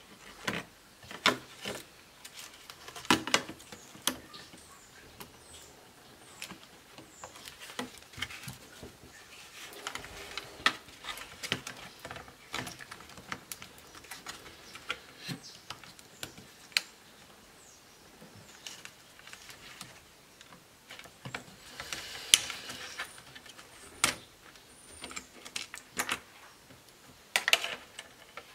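Irregular small clicks, taps and scrapes of a laptop's plastic case, connectors and circuit boards being handled as it is taken apart, with a cluster of sharper clicks near the end.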